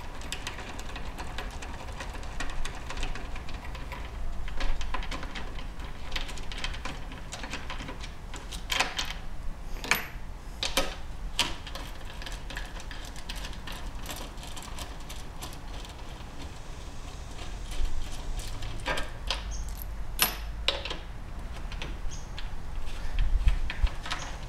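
Scattered small metal clicks and clinks of a hand tool and bolts as the bolts on the reinforcing bars of a Toyota Prius hybrid battery pack are loosened and taken out, with a handful of sharper clinks among them.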